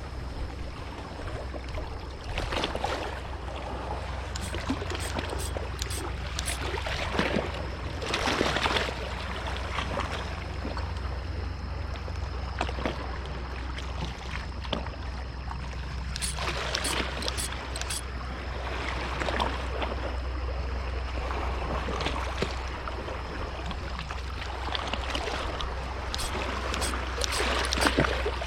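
Water sloshing and trickling, with a steady low hum underneath and occasional short knocks and splashes.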